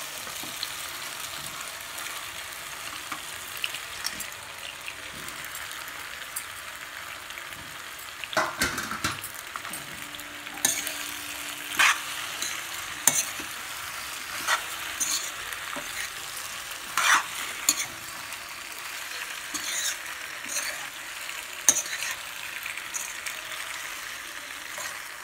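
Macaroni and vegetable masala frying in a kadai with a steady sizzle while a steel ladle stirs it. From about eight seconds in, the ladle scrapes and clinks sharply against the pan every second or two.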